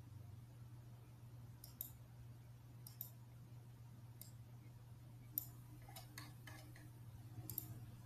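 Faint computer mouse clicks, a handful scattered a second or so apart with a quick cluster near the end, over a low steady hum.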